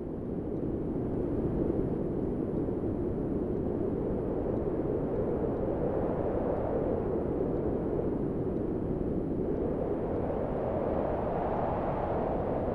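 Wind sound effect: a steady rushing wind that swells and rises in pitch as gusts build, highest near the end.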